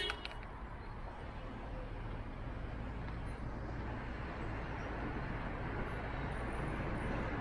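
Steady traffic and road noise, slowly growing louder.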